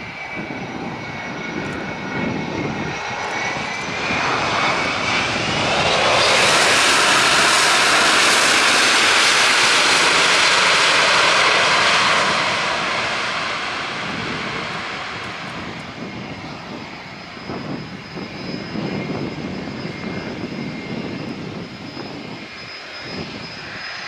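Airbus A330-200 jet, with Pratt & Whitney PW4000 turbofans, rolling out after touchdown. A whining engine hum swells about five seconds in into a loud rush for about six seconds, typical of reverse thrust, then fades as the jet slows and moves away. Strong gusty wind buffets the microphone.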